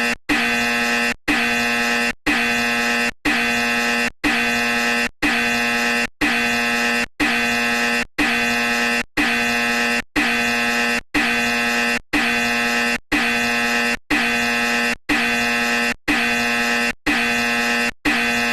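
A loud, harsh horn-like buzzing tone, sounding in blasts just under a second long that repeat about once a second with short breaks, steady in pitch throughout.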